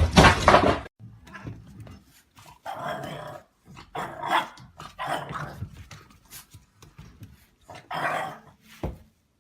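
A loud, noisy sound cuts off suddenly about a second in. Then a dog gives four or so short barks, spaced unevenly over several seconds.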